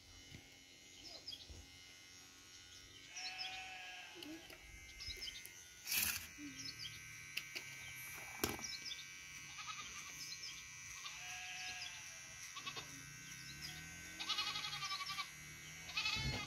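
Goats bleating several times with a quavering, wavering call, with two sharp clicks about six and eight and a half seconds in.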